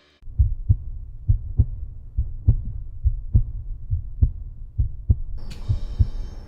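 A heartbeat sound effect in a film soundtrack: steady, low lub-dub double thumps, about one beat a second. A thin, high steady tone with a hiss joins about five seconds in.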